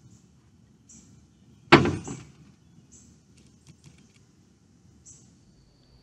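A single sharp knock about two seconds in, ringing briefly, over a faint low background with short high-pitched sounds repeating about once a second and a few faint ticks.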